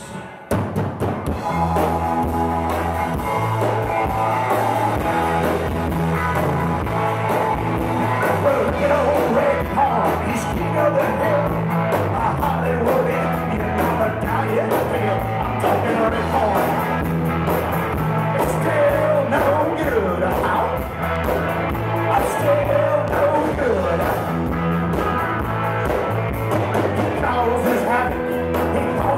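Live blues-rock band playing a song: electric guitar, bass and drums keep a steady groove while harmonica wails over the top.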